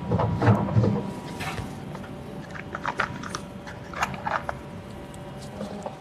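Clear plastic first-aid box being opened and its contents handled: a few short plastic clicks and rattles, after a brief shuffle of movement at the start.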